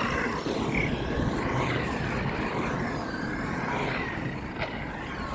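Radio-controlled truck driving on its own across a skatepark, its motor whine rising and falling in pitch over the steady rumble of its tyres on the hard surface.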